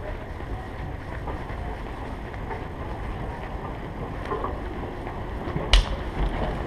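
Steady low rumble of movement noise from a camera worn on a walking dog, over store ambience, with one sharp click a little before the end.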